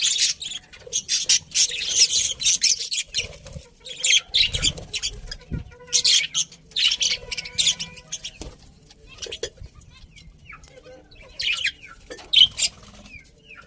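Budgerigars chirping and chattering in quick bursts of high-pitched calls, with a quieter spell a little past the middle. There are a couple of low thumps about five seconds in.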